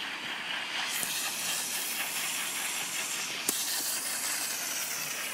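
Water jet spraying from a hose nozzle onto muddy ground: a steady hiss. One short click about three and a half seconds in.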